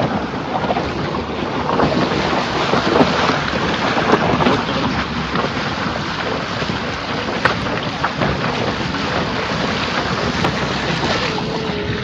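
Rushing water of a fast mountain stream running over a stony road, with wind buffeting the microphone and scattered clicks of stones.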